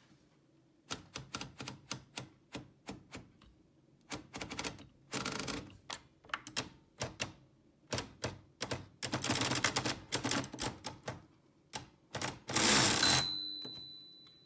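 Typing on a Privileg typewriter: keystrokes in quick runs of sharp clicks with short pauses between words. Near the end comes a longer, louder rattling stretch, after which a thin high tone lingers and fades.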